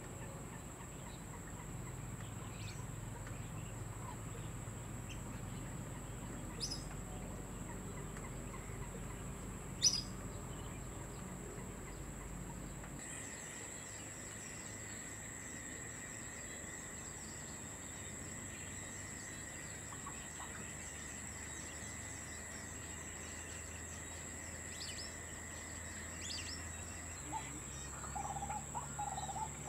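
Outdoor ambience of a steady high-pitched insect drone with faint scattered chirps. A sharp click comes about ten seconds in, and a few short calls come near the end; the background changes about thirteen seconds in, where a second steady tone joins.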